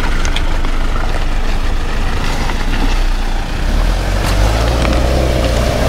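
Land Rover 4x4's engine running steadily off-road with a low rumble. A higher whine comes in over the last second or two, rising slightly.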